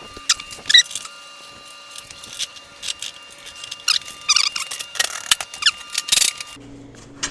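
Irregular clinks, knocks and short squeaks of metal snowplow parts and hardware being handled and fitted together during assembly.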